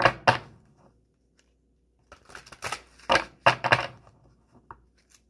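Deck of oracle cards being shuffled by hand: a short burst of crisp card clicks at the start, a pause, then a longer run of rapid clicks from about two seconds in to about four seconds.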